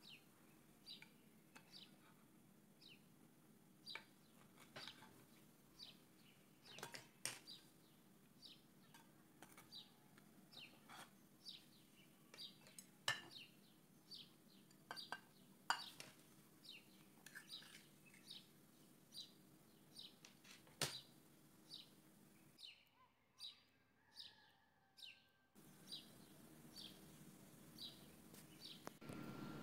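Faint bird chirps repeating every second or so, with a few sharp clicks in between.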